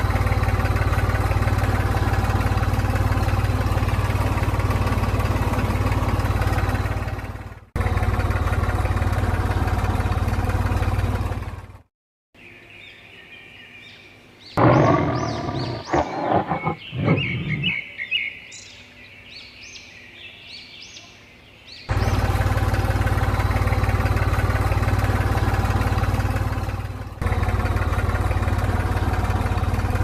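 A mini tractor's small engine running steadily, cut off abruptly twice. In a long gap in the middle, an animal gives a loud roar-like call lasting a few seconds, followed by a run of short, higher calls, before the engine sound returns.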